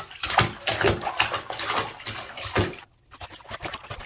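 Toddler splashing and sloshing bathwater with his hands in a bathtub: a run of irregular splashes that breaks off about three seconds in, followed by fainter splashing.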